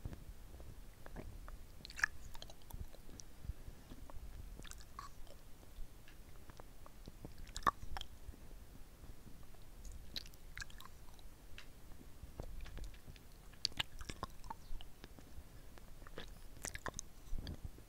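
Wet mouth sounds of a hard-candy lollipop being sucked and licked right at a mini microphone: irregular soft smacks and clicks of lips, tongue and saliva on the candy.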